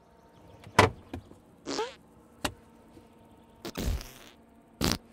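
A string of knocks and clunks, with short scraping and rustling, as things are handled in the front trunk of a Ford F-150 Lightning. The sharpest knock comes about a second in.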